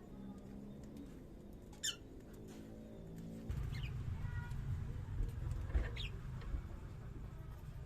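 A bird giving three brief, high squeaky chirps spread over several seconds, over a low rumble that starts about halfway through.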